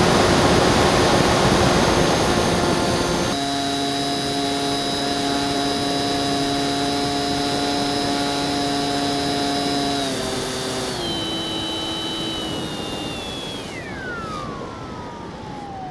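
Bixler 2 RC plane's electric motor and propeller whining, heard from the onboard camera over rushing air that is loudest in the first few seconds. The whine holds steady, steps down in pitch a little after halfway, then slides smoothly down and fades near the end as the throttle is pulled back and the motor spins down.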